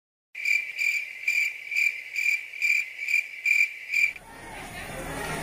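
Cricket chirping: a steady high-pitched series of about nine pulsed chirps, roughly two a second. It starts abruptly out of silence and stops abruptly a little over four seconds in.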